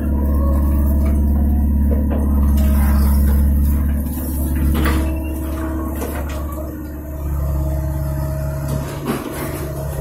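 Mini excavator's diesel engine running steadily under load, with steady hydraulic tones as the bucket scoops brick rubble and swings over to dump it into a dump truck. A few knocks and clatters of rubble come through, and the engine note changes about seven seconds in.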